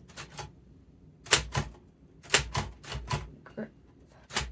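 Royal manual typewriter keys being struck one at a time, each a sharp clack. The strokes come in small uneven groups with short pauses between them.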